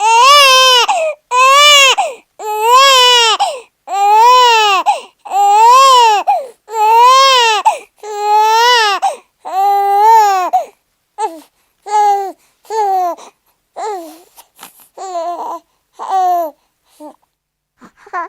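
Newborn baby crying: a run of loud wails, each about a second long, rising and then falling in pitch, with short breaths between. From about ten seconds in the cries grow shorter, quieter and more broken.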